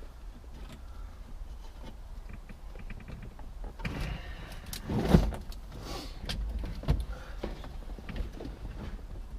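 Hand work on a car's stripped dashboard: a run of light clicks, then rustling and clunks of parts being handled, with a loud knock about five seconds in and another about seven seconds in.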